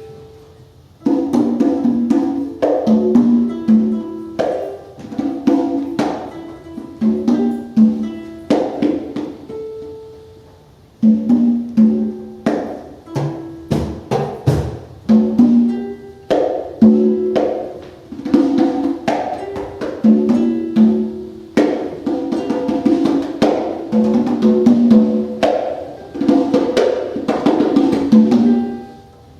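Conga drums played in quick rhythmic runs of pitched hand strikes in free improvised music. The runs break off briefly near the start and about ten seconds in.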